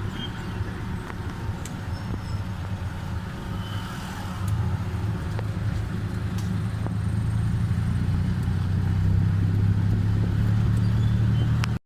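Tuk-tuk engine running steadily on the move with road noise. It grows louder from about four seconds in and stays strong until it cuts off suddenly at the end.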